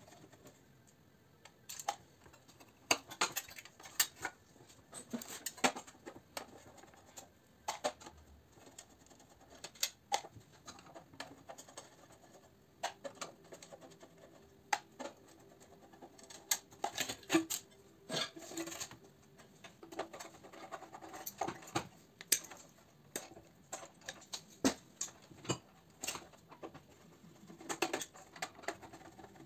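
Screwdriver and hands working on a metal light fitting housing as it is taken apart: irregular clicks, scrapes and light knocks of metal on metal.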